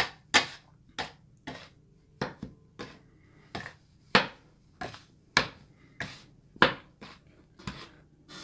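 Metal bench scraper scraping and knocking against a granite countertop in short strokes, roughly two a second at irregular spacing, as it cuts egg yolks into a mound of flour.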